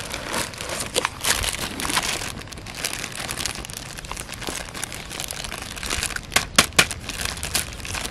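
Clear plastic bag wrapped around a toy tractor crinkling and rustling as it is handled, with a cluster of louder, sharper crackles about six and a half seconds in.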